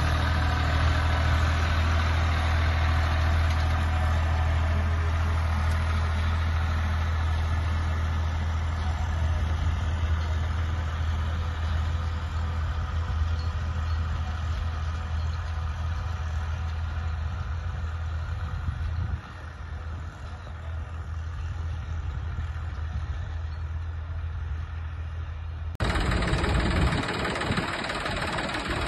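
Tractor engine running steadily with a low drone. It falls a little quieter about two-thirds of the way through, and near the end a louder, closer engine takes over.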